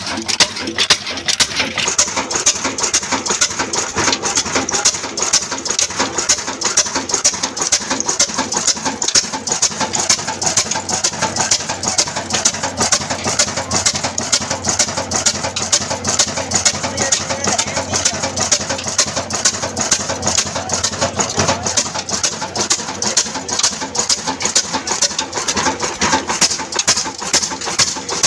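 Old stationary diesel engine built by Modern Industries, Daska, running steadily, each firing stroke a regular, evenly paced knock with metallic clatter.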